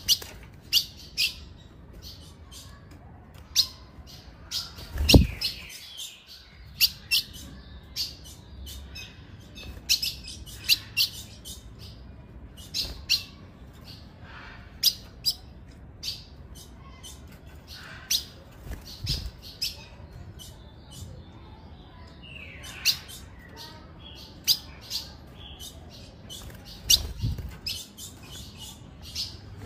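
Female ultramarine grosbeak (azulão) giving short, high call notes, one after another at uneven intervals. A few low thumps break in, the loudest about five seconds in and others near the middle and end.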